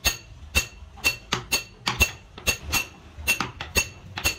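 Small steel punch struck with an iron bar to stamp decorative dots into a wooden block. Sharp metallic clinks come about twice a second, each with a brief ring.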